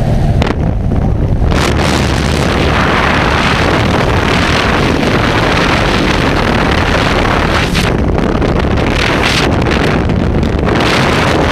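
Loud wind rushing and buffeting over the microphone at the open door of a small jump plane, with the engine droning low underneath. The rush swells about a second and a half in.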